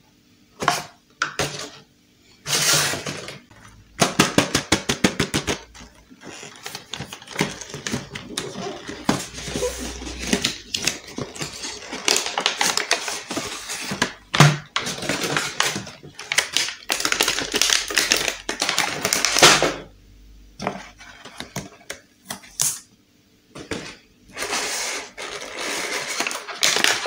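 Cardboard toy box being opened and a clear plastic blister tray handled, crackling and clicking, with a quick run of clicks about four seconds in.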